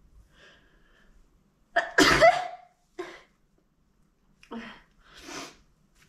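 A woman sneezing into a surgical face mask. A faint build-up leads to one loud sneeze about two seconds in, followed by a few shorter, quieter breathy sounds.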